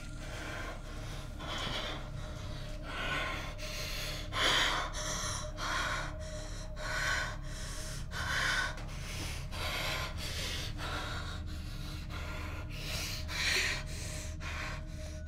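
A woman's quick, frightened breathing, stifled behind her hand, with short gasping breaths about one to two a second over a low steady hum.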